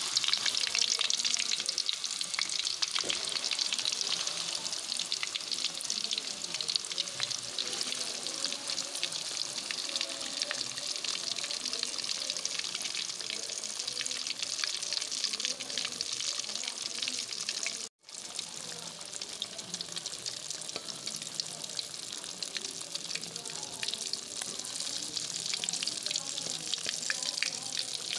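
Turmeric-coated pangasius fish pieces sizzling and crackling steadily in hot oil rendered from the fish itself, with a dense patter of tiny pops. The sound drops out for an instant about two-thirds of the way through.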